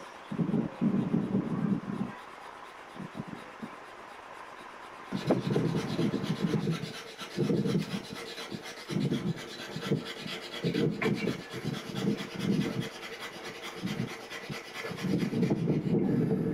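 Wooden fire-plough stick rubbed rapidly back and forth along a groove in a wooden board, a rasping stroke repeated several times a second, grinding out the hot wood dust meant to form an ember. The rubbing stops about two seconds in and picks up again at about five seconds.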